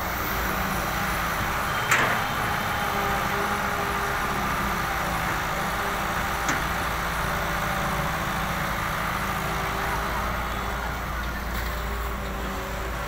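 John Deere 595D wheeled excavator's diesel engine running steadily under hydraulic load as it digs and swings a bucket of soil. Two sharp knocks cut through, the louder about two seconds in and a smaller one about four seconds later.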